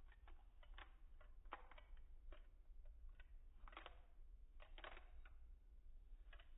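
Near silence: faint irregular clicks, a few a second, over a low hum.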